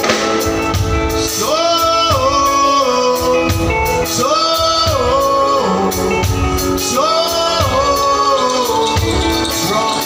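Live music: a male singer on a microphone, backed by a band with a steady beat. He repeats the same short sung phrase about every two and a half to three seconds.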